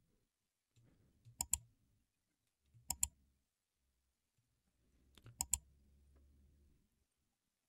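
Computer clicks from a mouse or trackpad button, each a press and release heard as a quick pair: one pair about a second and a half in, another about three seconds in, and a quicker run of three or four near the middle-end, as sliders and the playhead are dragged in the editing software.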